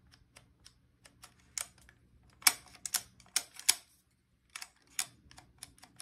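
Mercedes key jiggled back and forth in an Electronic Ignition Switch (EIS) unit: a run of irregular plastic clicks and rattles, loudest and densest in a cluster about midway, pausing briefly after it. The switch is only intermittently recognising the key, which the technician puts down to a bad switch.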